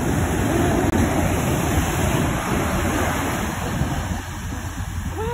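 Ocean surf breaking and washing up onto a sandy beach, a steady rush of water, with wind rumbling on the microphone. The rush eases a little about four seconds in.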